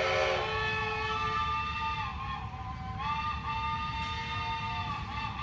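Steam whistle blowing as the lunchtime signal: a sustained chord of several tones. The lowest tone drops out about half a second in, and the pitch sags and wavers around two and three seconds in.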